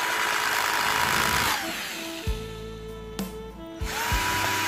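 Cordless drill/driver motor whining as it drives screws into a plastic radio case, in two runs. The first run winds down with a falling pitch about a second and a half in, and the second starts about four seconds in.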